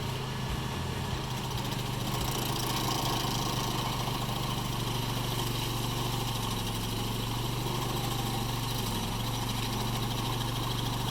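An engine running steadily at idle, a low, even hum with a slight waver.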